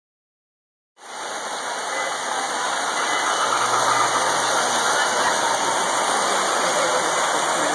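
Steady mechanical running noise of model trains on the layout's track, a constant whirring rumble that starts abruptly about a second in.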